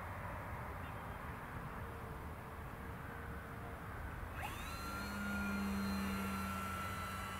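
Steady outdoor rush of air, then the whoosh and whistle of a radio-controlled K 8b scale glider passing close by: a thin whistling tone slides up a little past the halfway mark and holds steady as the sound swells, loudest near the end.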